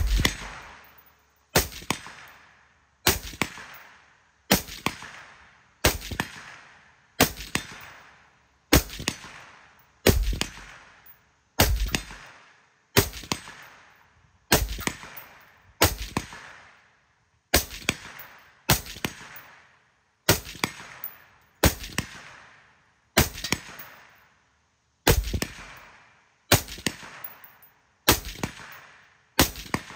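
Black Rifle Arms C.A.P.S. external-piston rifle fitted with a SilencerCo Chimera suppressor, firing about twenty single semi-automatic shots at a steady pace of about one every one and a half seconds. Each shot is a sharp crack that trails off over about a second.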